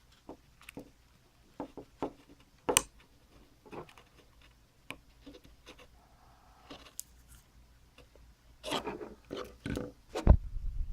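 Dupont jumper wires and a small display module being handled and plugged onto header pins: scattered small clicks and taps, then a louder run of handling noise with a low thump near the end.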